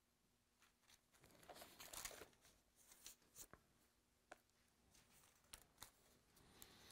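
Faint rustling and crinkling of thin Bible pages being leafed through by hand, with a few soft ticks scattered through it.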